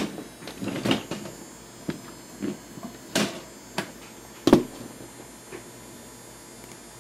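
A handful of irregular clicks and knocks, the loudest a deeper knock about four and a half seconds in, over a faint steady high-pitched whine. The whine comes from the running HP 2509m monitor's CCFL backlight, a noise the owner traces to the end of a tube and takes as a bad sign.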